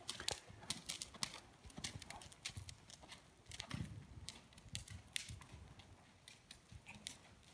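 Horse's hoofbeats on the sand footing of an indoor arena as it goes over ground poles, a quick irregular patter of thuds and clicks that grows fainter near the end.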